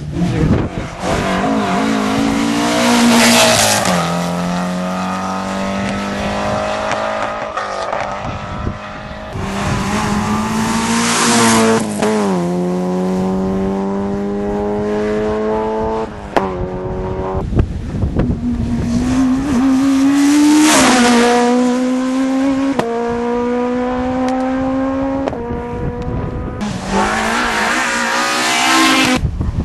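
Rally car engine at high revs, its pitch climbing and then dropping back at a series of gear changes, with tyre noise in the loudest moments as the car passes.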